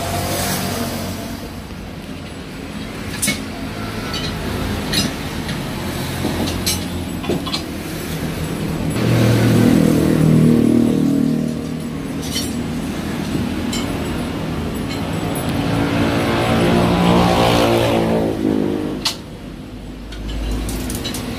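A motor vehicle engine running nearby, swelling and shifting in pitch twice, loudest about nine and seventeen seconds in. Sharp metallic clinks come now and then from steel leaf-spring leaves and tools being handled on the floor.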